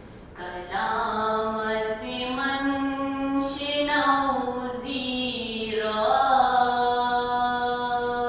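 A woman's solo voice chanting a devotional recitation unaccompanied through a microphone, in long melodic held notes that glide up and down between pitches, beginning about half a second in.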